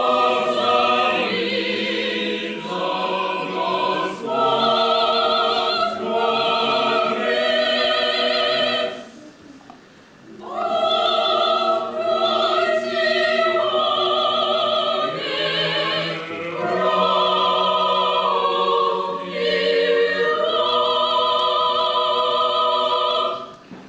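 A choir singing held chords with vibrato, in two long phrases with a short break about nine seconds in, stopping just before the end.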